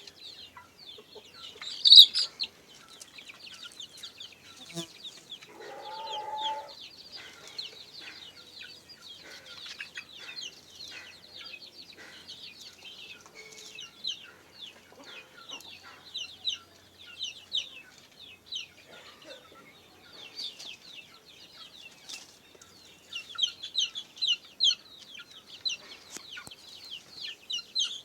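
Kampung chickens calling: a constant stream of short, high-pitched peeps and clucks, loudest about two seconds in and again near the end, with one lower call about six seconds in.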